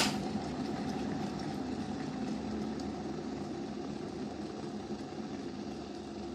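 Liberton electric kettle with water at a rolling boil, a steady rumbling bubble that slowly fades. A sharp click right at the start.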